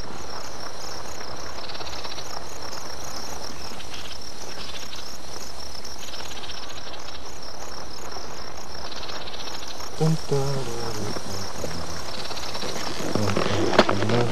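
Steady chorus of insects chirping, a high pulsing trill that swells in louder stretches every couple of seconds. A voice is heard briefly about ten seconds in and again near the end, the loudest moment.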